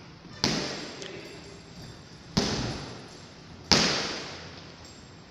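Boxing gloves punching a heavy bag three times, each hit sharp with a long echoing tail in a large hall.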